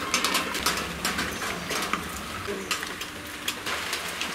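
Birds calling: irregular short, high chirps, with a faint low coo.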